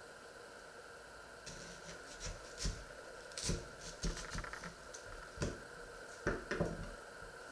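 Irregular clicks, knocks and rustles of something being handled out of view, starting about a second and a half in, over a steady background hum.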